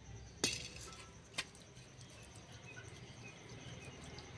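Two light clinks of a kitchen vessel being handled, the first about half a second in and a smaller one about a second later.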